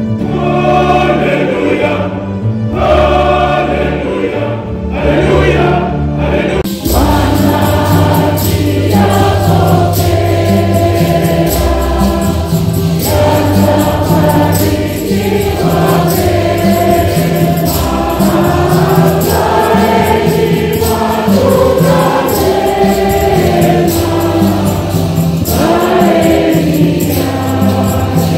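Background music: a song with singing voices over a repeating bass line, the arrangement filling out about seven seconds in.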